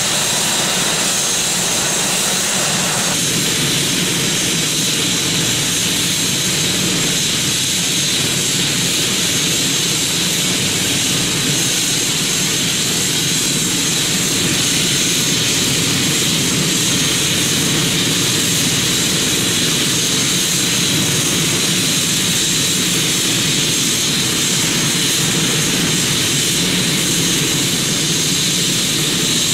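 Twin-turbine Airbus H145 (EC145 T2) helicopter running on the ground with its main rotor turning: a steady, high turbine whine over the noise of the rotor and fenestron.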